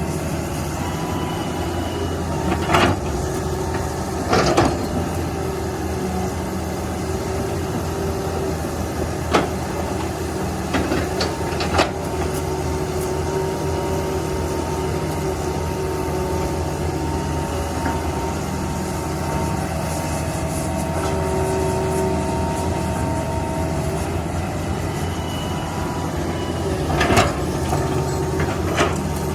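Heavy diesel machinery running steadily with a constant low rumble and a few steady whining tones, broken by a handful of short sharp clanks.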